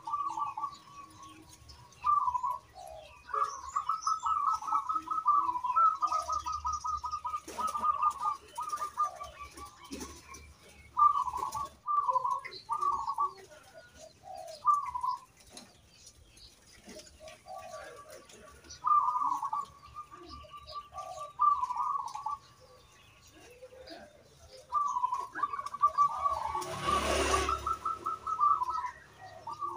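Zebra dove (perkutut) cooing in repeated phrases of quick, rippling notes, with pauses between the phrases. Near the end a brief, loud rushing noise rises under the song for about a second and a half.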